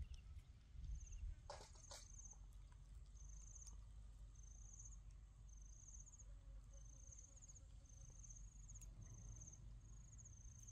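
Faint insect chirping: short, high, rapidly pulsed chirps repeating a little more than once a second, over a low rumble, with two sharp clicks near the start.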